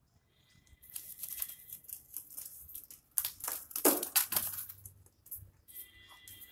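Irregular rustling and scraping as a puppy scrabbles and tumbles about on a woven floor mat, loudest in the middle.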